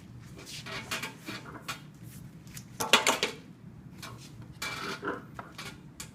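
Small metal parts and hand tools clinking and tapping on a workbench, with a sharper knock about three seconds in.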